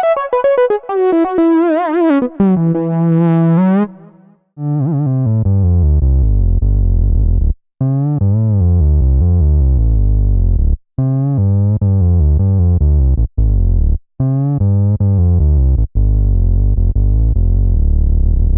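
Software synthesizer played from a keyboard: a lead patch slides and wavers downward in pitch for the first four seconds. Then, after a short break, a deep Moog-style synth bass patch plays phrases of notes that stop and start again several times.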